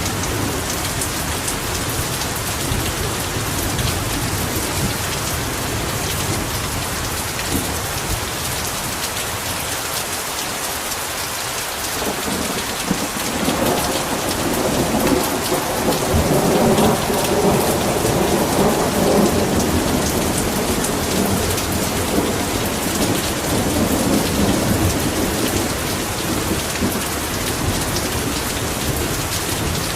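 Heavy rain falling steadily, with a long roll of thunder that builds about halfway through and dies away over the next ten seconds or so.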